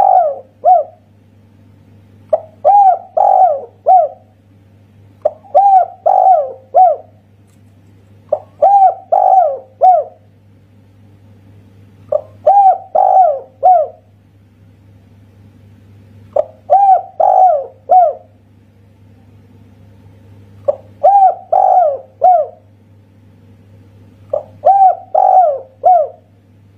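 Spotted dove (tekukur) of the 'kuk satu' song type cooing. Each phrase is three or four coos that rise and fall in pitch, and the phrases repeat about every four seconds, over a faint steady low hum.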